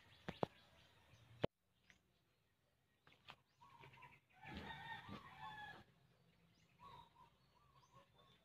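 A rooster crowing once, faintly, about four and a half seconds in, over near silence. A few sharp clicks come in the first second and a half.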